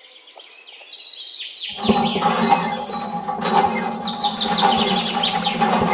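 A miniature water pump starts about two seconds in and hums steadily, with water pouring from the model hand pump's spout into a small steel bucket.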